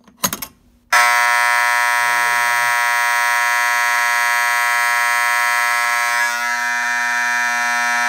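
FCI MS-2 dual-action pull station being lifted and pulled, with a few sharp clicks. About a second in, a SpaceAge fire alarm horn starts abruptly and sounds a continuous, unbroken alarm tone that holds steady.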